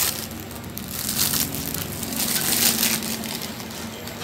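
Clear plastic wrapping crinkling as it is pulled off a power bank by hand, in several irregular rustling bursts, the loudest between two and three seconds in.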